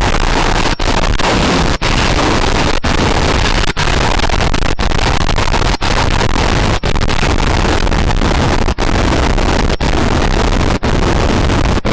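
Extremely loud, blown-out noise filling every pitch, broken by a brief dropout about once a second, like a deliberately distorted comedy sound effect looped over and over.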